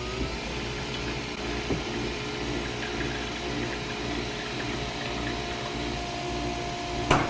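Nespresso Vertuo coffee machine brewing into a glass: a steady motor-and-pump hum with a fast, even pulsing as the capsule spins, and a higher steady tone joining about halfway through. A short, sharp knock sounds near the end.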